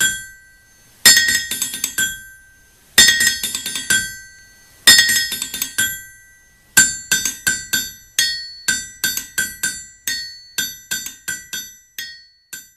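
Intro music of tinkling, bell-like struck notes: quick runs of ringing notes about every two seconds, then single notes in a steadier pattern.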